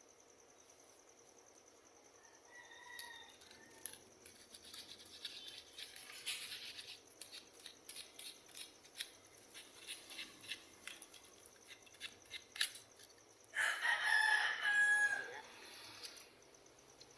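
A rooster crowing once, about two seconds long, near the end: the loudest sound, holding its pitch and then dropping. Before it come a fainter, shorter call about three seconds in and a run of irregular clicks and light knocks.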